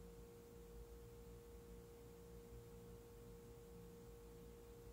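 Near silence, apart from a faint, steady, single-pitched hum.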